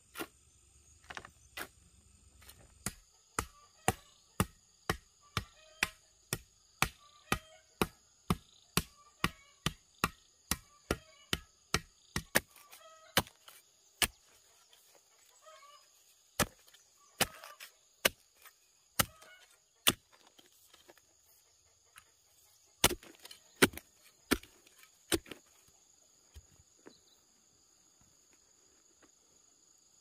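Metal digging blade striking hard, stony clay soil, about two strikes a second for some twenty seconds, then a short run of harder strikes and a stop near the end. A steady high insect drone runs underneath.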